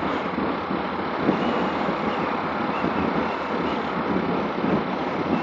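Steady rush of wind and road noise from a motorcycle moving at speed, with no clear engine note standing out.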